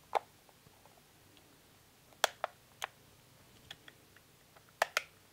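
Sharp clicks from a Park Tool Cyclone chain cleaner as its plastic lid is snapped shut and the unit is settled onto a bicycle chain. There is one click near the start, a few scattered through the middle and two close together near the end.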